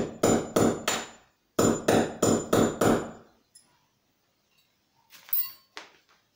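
A hammer striking metal in two quick runs of blows, about three a second, each hit ringing with a high metallic tone. A short, quieter clatter follows near the end.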